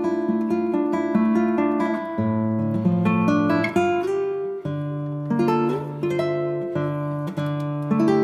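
Background music: plucked acoustic guitar playing a steady melody over picked bass notes.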